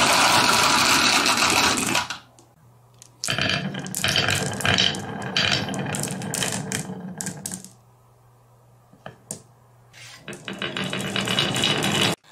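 Marbles rolling and clattering down a wavy wooden marble-run track in three runs, with short pauses between them and a few lone clicks in the longer pause.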